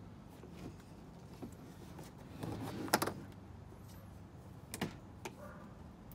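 Parts of an animatronic dog house being handled and fitted together during assembly: rustling, then a few sharp clicks and knocks, the loudest about three seconds in.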